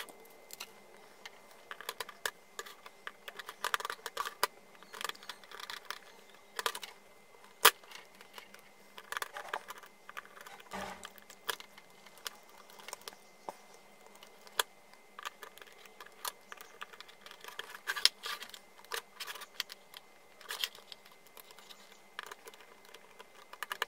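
Small screwdriver clicking and scraping in the screw terminal blocks of a TPA3116D2 amplifier board, with handling of the board and speaker wires: a run of scattered light clicks and short rustles.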